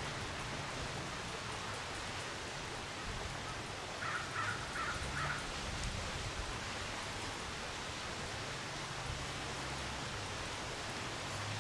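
Steady outdoor hiss of ambient noise, with a bird giving four short calls in quick succession about four seconds in.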